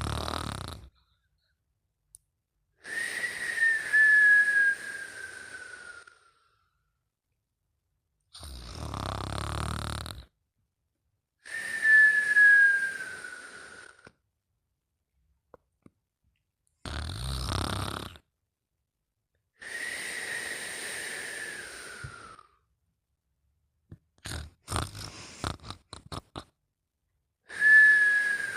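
A sleeper snoring, the rough snores alternating with a high whistle that slides down in pitch over two to three seconds, four times. A few short sputtering puffs come shortly before the last whistle.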